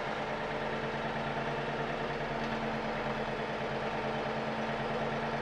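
Compact tractor's engine running at a steady speed, an even hum that holds one pitch.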